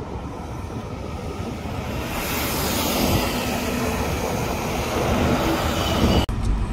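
Highway traffic: a truck's engine and tyre noise grow louder as it approaches and passes below, over a steady wash of road noise. The sound cuts off abruptly about six seconds in.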